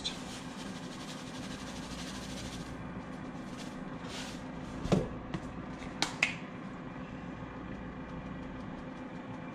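Salt hissing softly as it is poured from a box onto shredded cabbage for the first couple of seconds, then a few light knocks as seasoning containers are set down on the stovetop about halfway through, over a steady low hum.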